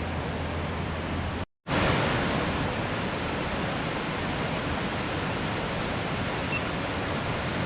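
Steady rushing of the Barron Falls waterfall, which cuts out completely for a moment about a second and a half in.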